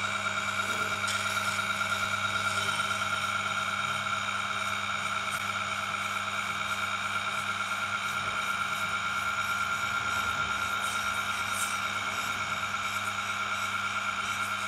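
Tormek T7 wet grinder running steadily, a low motor hum under a steady high whine, while the flat back of a steel chisel is held against the side of its grindstone.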